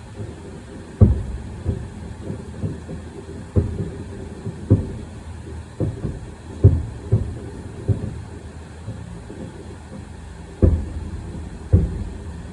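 Fireworks shells bursting in the sky: a run of deep booms at irregular spacing, each with a short rumbling tail, the loudest about a second in, near the middle and near the end.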